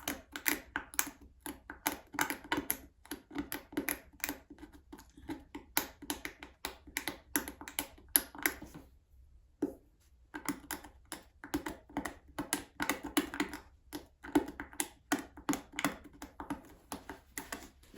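Hand tool picking and scraping at a stuck fastener sunk in a wooden toolbox board: a fast, uneven run of clicks and scrapes, with a short pause about halfway through.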